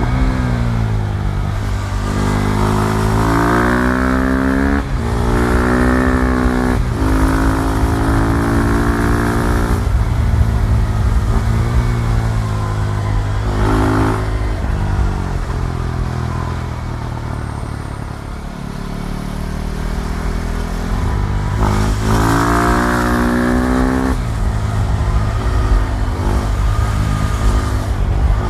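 KTM Duke 390's single-cylinder engine accelerating hard through the gears: the pitch climbs in several pulls, each broken off by a quick upshift. It eases off about two-thirds of the way in, then pulls hard again.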